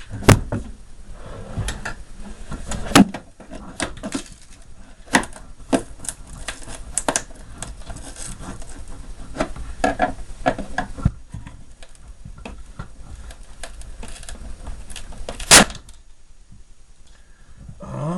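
Irregular clicks, knocks and clatter of plastic and metal parts being handled while an electronic mini fridge is taken apart, with one sharp knock near the end.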